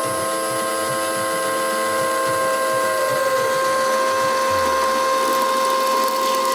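Electric power tool motor running steadily with a high-pitched whine; a second pitch in the whine slides down about three seconds in.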